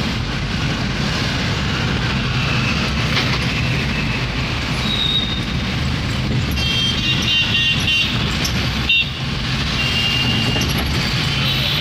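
Steady road and engine noise inside a moving car in heavy city traffic, with car horns honking outside: a short toot about five seconds in, a run of honks around seven to eight seconds, and another near ten seconds.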